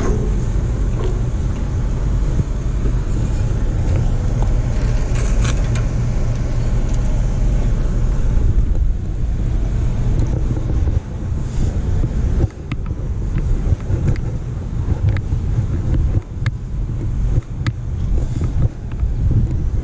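Wind rumbling on a shoulder-worn GoPro's microphone: a loud low roar that wavers and dips more in the second half, with a few light ticks.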